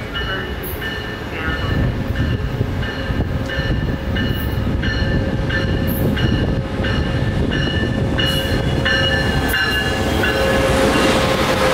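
Amtrak California passenger train led by a Siemens Charger diesel locomotive arriving along the platform, its bell ringing nearly twice a second over a steady engine hum and wheel rumble. The rumble of wheels on rail grows louder near the end as the bilevel cars pass close by.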